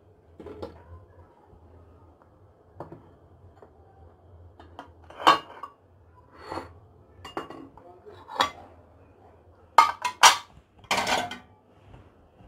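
Kitchen dishes and utensils being handled, giving a string of separate clinks and knocks with the loudest few close together near the end.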